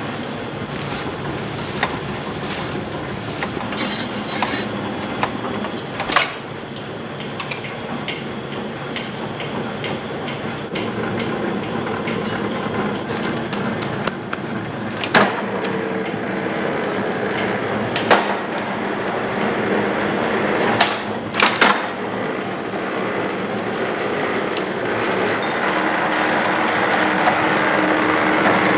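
Confectionery workshop machinery running steadily, with about five sharp knocks, two of them close together near the end.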